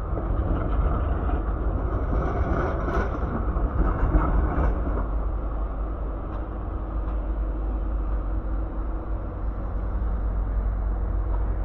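City street traffic: a steady low rumble of vehicles, with one passing closer and louder a few seconds in.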